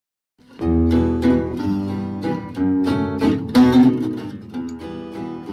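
Acoustic guitar music, plucked and strummed, starting suddenly about half a second in after silence.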